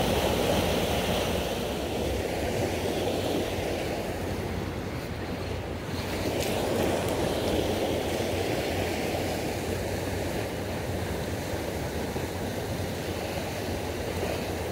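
Fast river current rushing over shallows and a white-water run: a steady rush of water that swells a little now and then.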